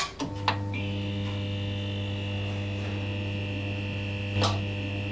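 Electric buzz of a neon sign as a sound effect: a steady hum with higher whining tones, broken by sharp crackling zaps at the start, half a second in and about four and a half seconds in.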